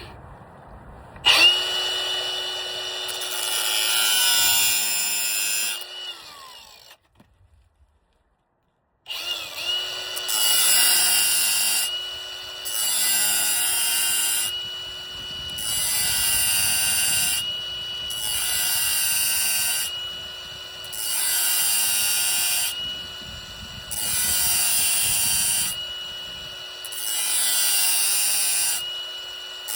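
Power drill turning a freshly sharpened Milwaukee hole saw: a steady motor whine with cutting noise. It starts about a second in, stops for a couple of seconds about seven seconds in, then runs again with the cutting noise swelling and easing about every two seconds as the saw bites.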